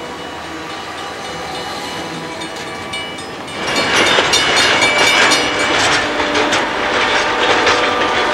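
Conrail freight train passing close by: its diesel locomotives run past with a steady rumble. About three and a half seconds in, the sound jumps louder to the clatter of freight cars' wheels clicking over the rail joints.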